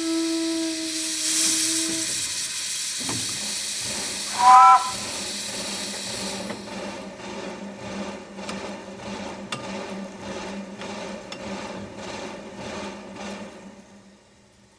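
Steam hissing from the open cylinder cocks of a 1935 Orenstein & Koppel 0-4-0 narrow-gauge steam locomotive, with a low steady tone for the first two seconds and a short, loud chime blast from the steam whistle about four and a half seconds in. The hiss stops about six and a half seconds in, leaving faint regular ticking over a low hum.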